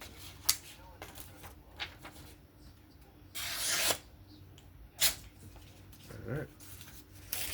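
Knife handling at close range: a few sharp clicks, and in the middle one rubbing, rasping stroke of under a second, typical of a blade being worked on a diamond-emulsion strop or drawn across a test material.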